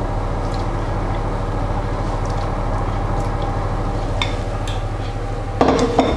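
A steady low machine hum, with a few faint soft dabs of a pastry brush on the food. About five and a half seconds in, a short clatter of kitchenware as the dish things are moved.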